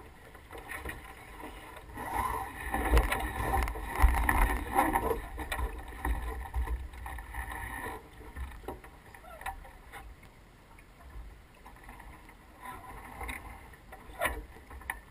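Wind buffeting the microphone aboard a small racing sailboat under way, with louder rustling and knocks of crew and rigging from about two seconds in to about eight seconds in.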